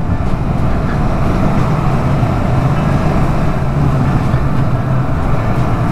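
Yamaha MT-07 motorcycle's parallel-twin engine running at a steady cruise while being ridden, mixed with wind and road noise, with no change in pace.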